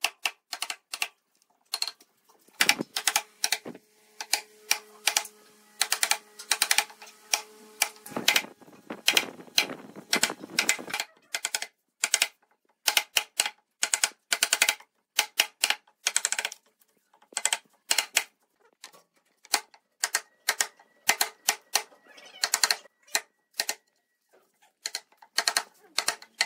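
Steel chisel cutting notches into a pine board, driven by a wooden mallet and pared by hand: a long run of sharp, irregular knocks and wood-splitting cracks, several a second.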